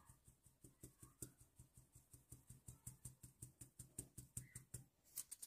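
Faint, rapid, even ticking of a flour sieve being shaken as flour is sifted into a bowl, about five strokes a second, stopping near the end.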